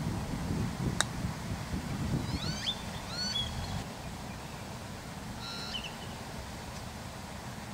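A golf club striking a ball on a chip shot: one sharp click about a second in. A bird chirps in two short bursts after it, over low wind rumble on the microphone.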